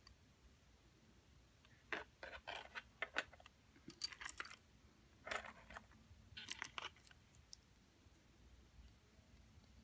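Metal jewelry clinking and rattling as fingers handle a ring and pick through a tray of gold-tone chains: clusters of light, quick clicks between about two and seven seconds in.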